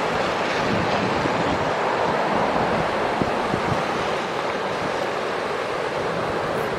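Ocean surf breaking steadily, with wind buffeting the microphone.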